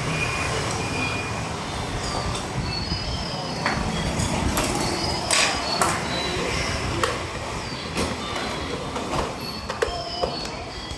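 Scattered clicks and knocks with short, high squeaks over a steady low background noise, typical of hands and small tools working on a laptop's plastic and metal casing.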